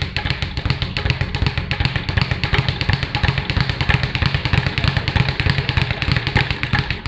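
Leather speed bag being punched continuously, rebounding off its wooden platform in a fast, steady rattle of thuds, many per second.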